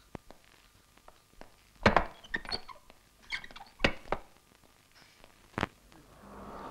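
Eight or so sharp knocks and thuds at irregular gaps, some in quick pairs, the loudest about two seconds in and near the end. A steady low background hum comes in near the end.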